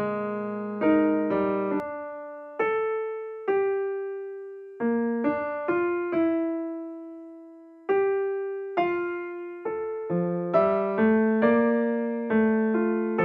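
Background solo piano music: single notes and soft chords, each struck and left to fade. It slows to a few long held notes in the middle and becomes quicker and busier near the end.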